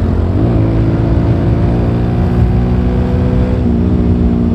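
Suzuki Gixxer motorcycle engine running while being ridden, a steady note that rises briefly about half a second in and steps up slightly in pitch near the end.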